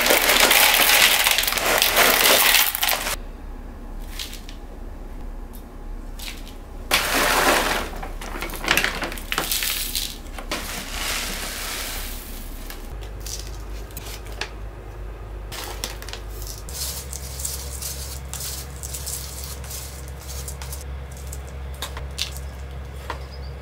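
Small stones poured from a bag into a plastic plant pot, a loud rattling clatter for the first three seconds. Shorter pours follow, perlite among them near the middle, then scattered light taps and clicks as the potting mix settles.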